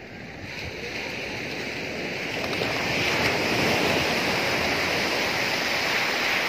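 Sea surf breaking and washing up the beach: a rushing wash of water that swells over the first few seconds and then holds steady.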